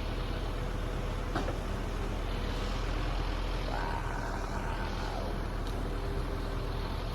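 Truck engine running steadily, with a short click about a second in and a steady whine for about a second and a half near the middle.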